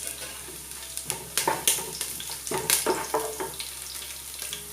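Garlic and green chilies sizzling in hot coconut oil in a pan, with a spoon stirring and knocking against the vessel about half a dozen times.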